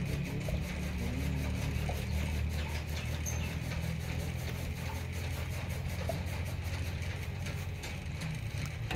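An engine running steadily at idle, a low even drone.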